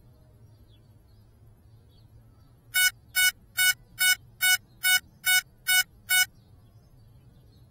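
Nine short, evenly spaced electronic beeps, about two and a half a second, from an FPV drone's lost-model beeper: the locator signal of a quad that is down and disarmed in the grass.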